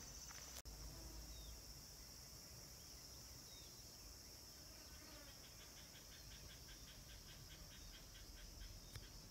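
Near silence: faint outdoor ambience of distant insects and birds, with a steady high hiss, a few faint chirps, and a run of quick ticking calls at about five a second from about five seconds in until near the end.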